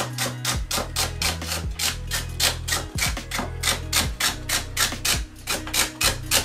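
Kitchen knife chopping celery on a wooden cutting board in quick, even strokes, about four a second.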